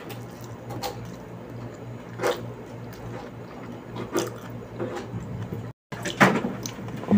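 A person eating with her fingers: chewing and mouth sounds, with a few short clicks and taps as she picks at the food, over a steady low hum.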